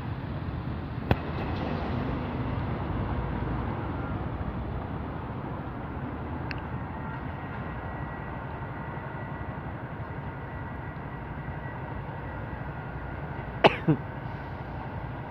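Steady rumble of road traffic and a tram running on the tramway. A sharp click about a second in and two louder knocks close together near the end.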